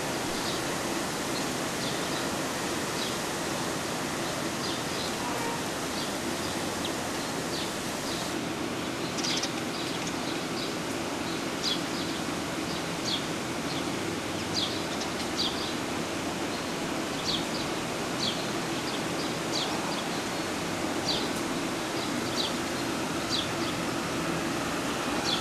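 Steady outdoor hiss with short, high bird chirps scattered irregularly through it, coming more often from about a third of the way in.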